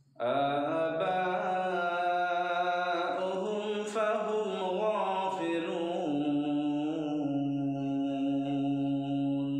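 A man's voice reciting the Quran in melodic tajweed chant, one unbroken line that winds up and down in ornaments, then settles on a long held note from about six seconds in.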